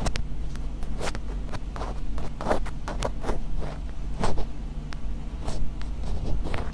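Close-miked ASMR scratching ("karikari"): short, irregular scratching strokes, one to three a second, over a steady low hum.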